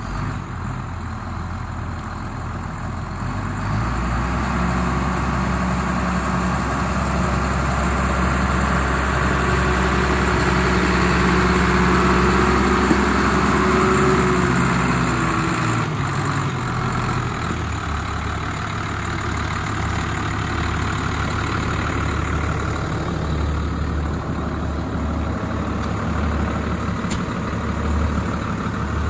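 New Holland TM165 tractor's six-cylinder turbo-diesel engine running, growing louder as the tractor comes close. A little past halfway its note drops and it settles into a steady idle.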